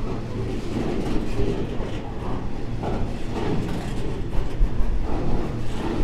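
Freight train rolling past: a steady low rumble with repeated short knocks.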